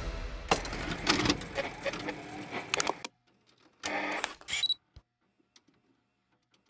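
Digital glitch sound effects of a logo sting: a rapid run of stuttering electronic clicks and crackle that cuts off suddenly about three seconds in, then two short bursts of static a little after four seconds and a single click near five.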